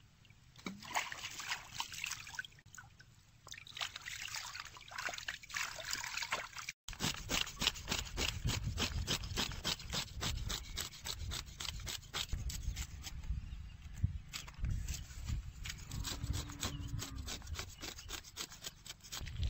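Knife blade scraping the scales off a large pacu in quick, repeated strokes from about seven seconds on. Before that, irregular scraping and splashing.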